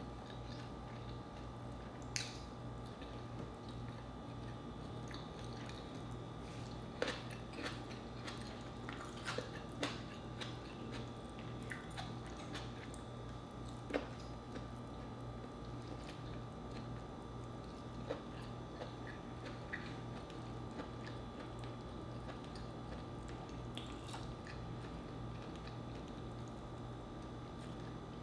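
Close-miked mouth sounds of eating crispy pata (deep-fried pork leg) with rice: chewing and biting with scattered sharp crunchy clicks, busiest about a quarter of the way in. A steady low hum runs underneath.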